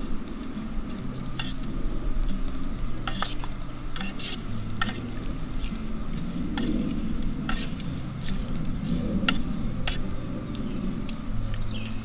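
Steady high-pitched insect chirring, with a metal spoon clinking and scraping against an aluminium cook pot as soup is stirred, a handful of sharp clinks at irregular moments.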